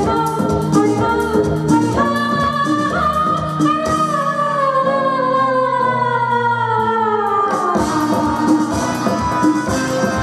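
A woman sings a Hindi film song live with a band of keyboards and drums. About two seconds in she holds one long note that slowly sinks in pitch for some six seconds, then the drums pick up again near the end.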